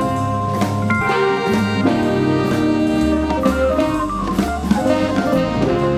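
Small jazz-blues band playing live: guitar, piano, bass and drum kit, with held melody notes over a steady drum beat.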